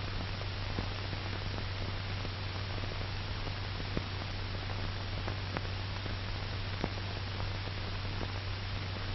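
Steady hiss and low hum of an old optical film soundtrack, with a few faint crackles.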